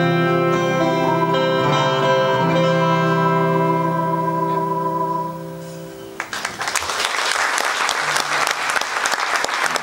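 A held final chord from twelve-string acoustic guitar, electric guitar and melodica, the melodica holding a long high note, fading out about five seconds in. Audience applause breaks out about a second later and carries on.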